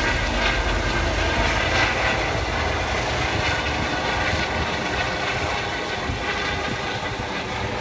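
Eurocopter EC135 rescue helicopter passing overhead: steady turbine and rotor noise with a fast low beat from the blades, easing off slightly in the second half as it moves away.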